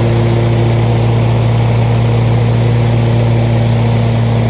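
Engine running steadily at a constant speed close by, a loud even hum with no change in pitch.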